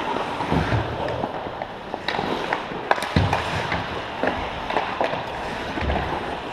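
Ice hockey play around the net: skates scraping on the ice, with sharp clacks of sticks and puck throughout and a few dull thumps.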